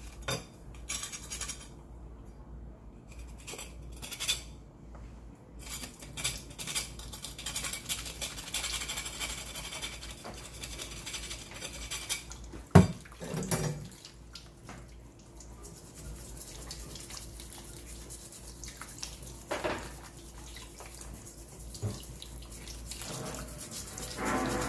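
Knife scraping and clicking on a live land crab's shell, then a kitchen tap running as the crab is rinsed and scrubbed under it. A sharp knock comes about halfway through, with a few lighter knocks later.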